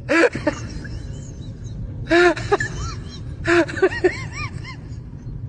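Repeated short cries, each rising and falling in pitch, coming in three clusters of one longer call followed by a few quicker ones, over a steady low hum.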